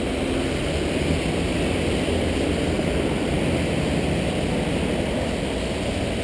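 Steady street traffic: cars and a small truck driving through the intersection on a rain-wet road, engines and tyre noise merging into one continuous rush.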